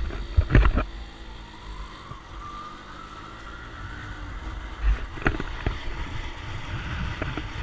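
Honda motorcycle running on the move, heard as a steady low rumble with wind on the microphone. A faint whine rises over the first few seconds, and there are sharp knocks near the start and again about five seconds in.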